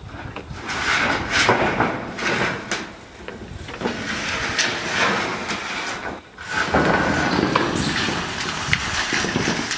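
Corrugated metal roofing sheets scraping and rattling as they are dragged across wooden roof battens and lifted off, with scattered metallic clanks and knocks. The noise breaks off briefly about six seconds in, then starts again.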